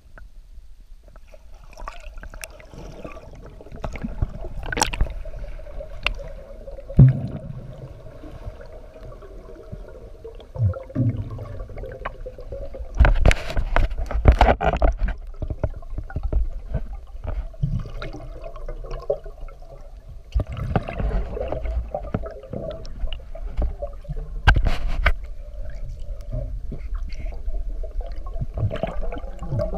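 Muffled underwater sound picked up by a camera submerged in a flooded quarry: water gurgling and rumbling against the housing, with several louder rushes, the biggest about halfway through and another near three quarters of the way.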